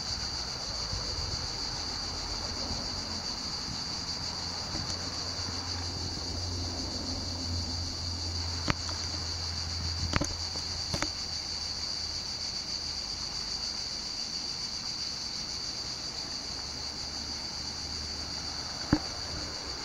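Cicadas singing in a steady chorus, a continuous high buzz. A low hum runs underneath through the first part, and a few sharp clicks come in the middle and just before the end.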